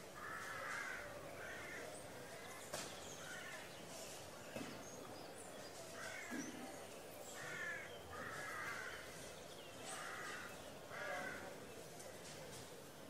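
Crows cawing: about eight harsh, rasping caws at irregular intervals over a faint steady background, from a town-square daytime ambience recording.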